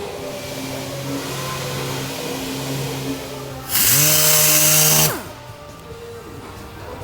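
A small handheld power tool's motor spins up about halfway through, runs loudly for about a second and a half, then winds down as it is switched off.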